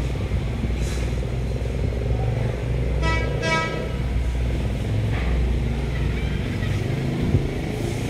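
Steady low rumble of road traffic, with a vehicle horn giving two short honks about three seconds in.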